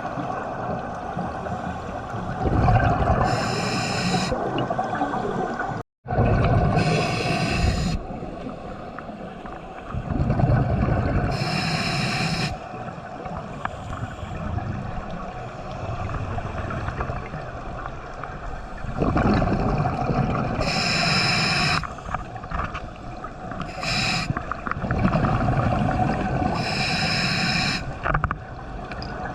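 Scuba diver breathing underwater through a regulator: exhaled bubbles rush out in bursts every few seconds, with a low rushing between breaths.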